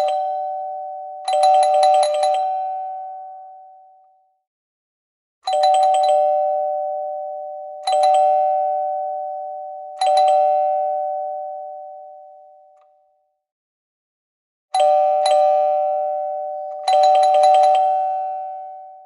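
A metal doorbell rung over and over: single strikes and quick flurries of rapid strikes on one bell. Each ring fades slowly over a few seconds.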